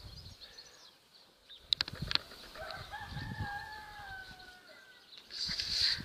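A rooster crowing once in the second half, one long call sliding slightly down in pitch. Two sharp clicks come just before it, and a louder rustling starts near the end.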